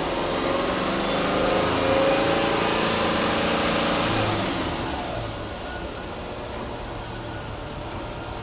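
Subaru Impreza hatchback 1.5i-S's flat-four boxer engine, heard from the exhaust, revved in place and held at raised revs for a few seconds, then falling back to a steady idle about five seconds in.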